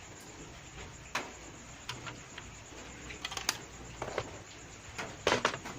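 Irregular small clicks and taps from hands handling the speaker's circuit board, button and test probes, with a busier cluster of clicks near the end.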